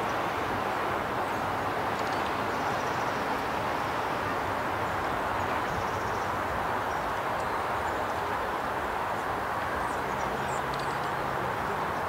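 A steady, even rushing outdoor noise, with a few faint high bird chirps near the end.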